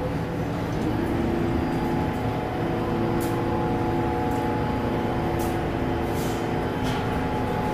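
New York City subway train at the station platform, a steady rumble with a hum of several even tones, broken by a few short hisses of air.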